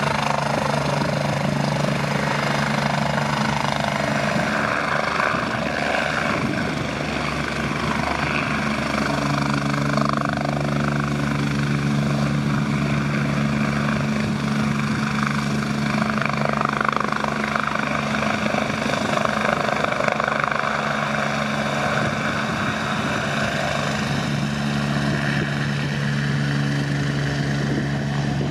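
MBB/Kawasaki BK117 B-2 twin-turbine helicopter hovering low: the steady beat of the rotors over a turbine whine, with a steady low hum.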